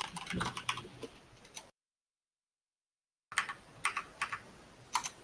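Computer keyboard typing: a run of quick key clicks, then the audio drops out completely for about a second and a half, then a few more separate key taps. The dropout is the video-call audio cutting out entirely.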